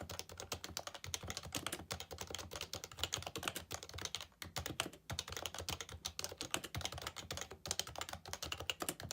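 Fast, continuous typing on a Happy Hacking Keyboard Professional 2 with Topre capacitive key switches, a dense run of keystrokes with brief pauses about four and five seconds in.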